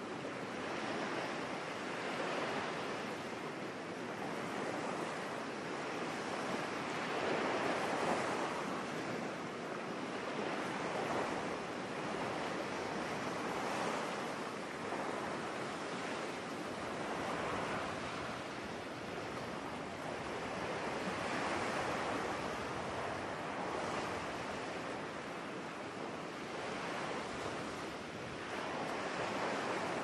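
Sea surf breaking on a sandy beach: a continuous rush of waves that swells and eases every few seconds.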